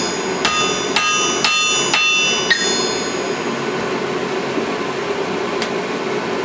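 A blacksmith's hand hammer strikes a hot 4140-steel claw-hammer head on an anvil. There are five ringing blows, about two a second, and they stop about two and a half seconds in. A steady low hum runs underneath.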